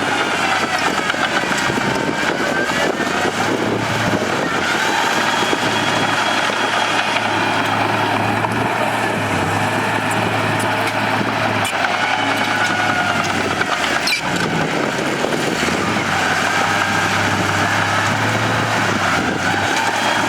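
Bulldozer's diesel engine running steadily under work, with a whine that rises and falls over a constant low hum.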